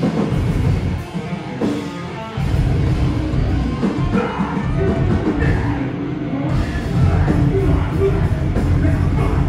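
A metalcore band playing live, with heavy distorted guitars, bass and drums. The sound thins out briefly, then the full band crashes back in about two and a half seconds in.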